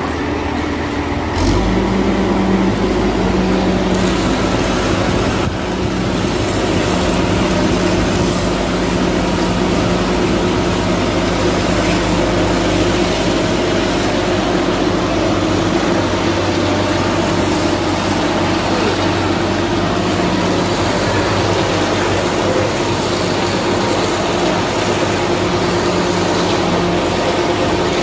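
Transit mixer truck's diesel engine running steadily under load as its rotating drum discharges concrete down the chute. About a second and a half in, the engine picks up and runs higher and louder.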